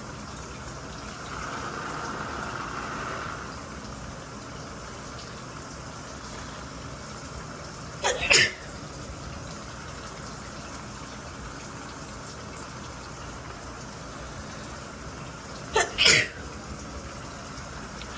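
A woman sneezing twice, about eight seconds apart, each sneeze led by a quick catch of breath, over the steady hiss of running shower water. These are allergy sneezes set off by a strongly scented body wash.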